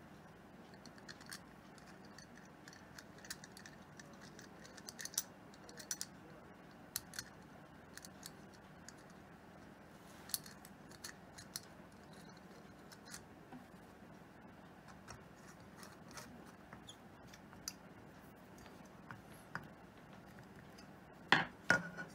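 Faint, scattered metallic clicks and light scrapes of small metal parts being fitted and turned in the centre of a chrome motorcycle mirror housing, with a few louder knocks near the end.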